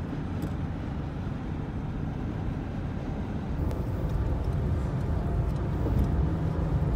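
Moving car's steady road and engine noise, a low rumble that slowly gets louder.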